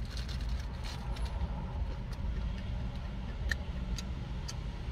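Steady low rumble of an idling car engine, with a few soft clicks from eating a burger during the second half.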